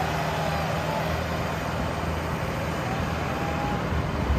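Diesel engines of a Sonalika 750 DI and a New Holland 3630 tractor running with a steady, even low drone.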